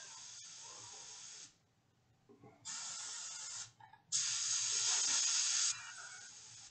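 Dual-action airbrush spraying thinned paint in short trigger-controlled bursts of hissing air: one hiss that stops after about a second and a half, a shorter burst, then the loudest burst about four seconds in, which eases off near the end.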